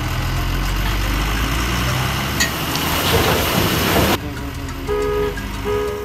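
Heavy truck engine running with a steady low rumble, joined by a rushing noise that cuts off abruptly about four seconds in. Two short horn toots follow near the end.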